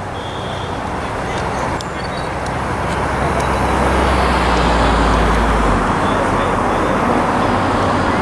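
A motor vehicle running close by, its noise building over the first few seconds; its low drone cuts off about six seconds in.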